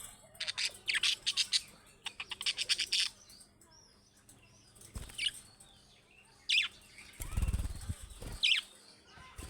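Budgerigars chirping: two quick runs of rapid high chirps, then a few single sharp falling chirps. A low fluttering rumble comes about three-quarters of the way through.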